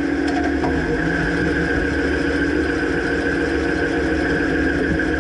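2009 Dodge Ram pickup running steadily, with a couple of faint light ticks in the first second.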